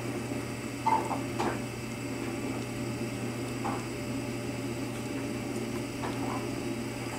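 A few brief squeaks from newborn Bernese mountain dog puppies, about a second in, near four seconds and around six seconds, over a steady low hum.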